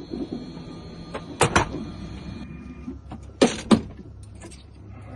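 Two pairs of sharp clicks, the first about one and a half seconds in and the second about three and a half seconds in, over a faint steady background.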